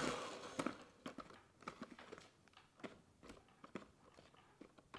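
An electric hand mixer winds down just at the start, then faint scattered clicks and taps as its beaters work in a plastic bowl of thick chocolate cake batter.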